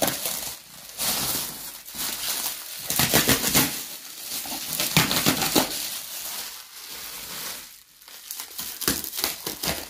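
Bubble wrap crinkling and crackling irregularly as it is handled and pulled off a boxed appliance.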